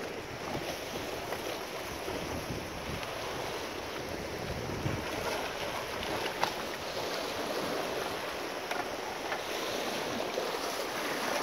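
Sea surf washing steadily over the rocks, with wind buffeting the microphone: an even rushing hiss.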